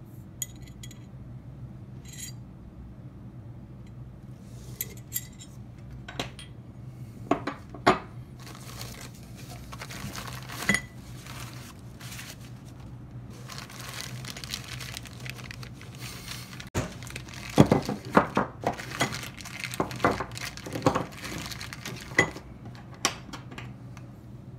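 Clear plastic bags crinkling and hard electric-skateboard motor mount plates clinking and clattering as they are handled and set down, in scattered bursts that are busiest in the second half.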